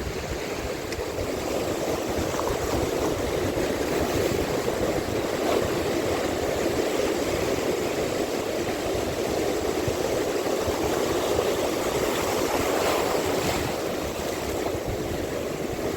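Steady wash of sea water, an even rushing noise.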